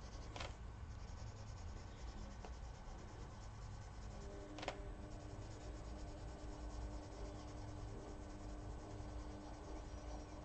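Prismacolor coloured pencil in kelp green shading on paper: a faint, steady scratching of the pencil point rubbing over the page, with two short clicks, one about half a second in and one near the middle.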